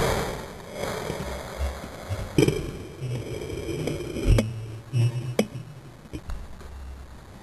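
A dog sneezing: a few short, sharp bursts of air through the nose, the first about two and a half seconds in, with light knocks and clicks between them.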